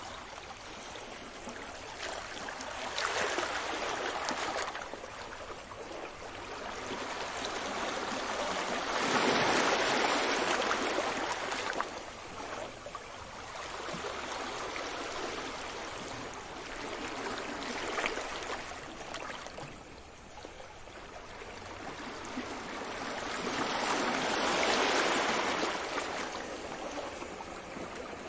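Sea waves breaking and washing up the shore, swelling and fading in about four surges, the strongest about ten seconds in and another near twenty-five seconds.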